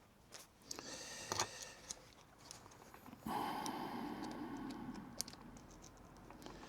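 Small clicks and taps of a T-handle hex key on the cap-head backplate bolts of a model glow engine as the tight bolts are worked. A sharp click comes about a second and a half in, and a rough rasping noise starts suddenly about three seconds in and fades over about two seconds.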